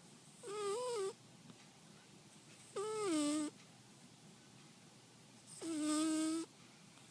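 Kitten snoring: three high, wavering snores, each under a second long and about two and a half seconds apart, in time with its breathing.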